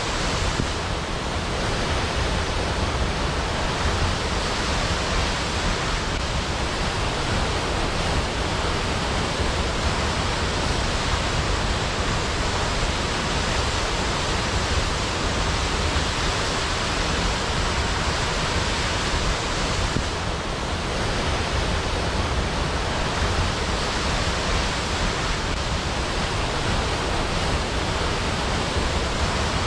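Waterfall: a steady, unbroken rush of falling water, even from the low end to the high.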